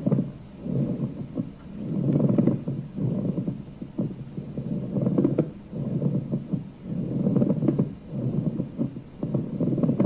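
Pleural friction rub heard through a stethoscope recording: a dry, crackly grating like bending old leather, coming in evenly repeating, symmetrical bursts about once a second with the breaths in and out. It is the sign of inflamed pleura, where sticky surfaces between the lung and the chest wall rub and pull apart with each breath.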